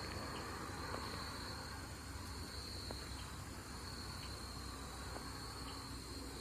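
Insects chirring in a steady high-pitched drone that swells and fades every second or two, over a low background rumble.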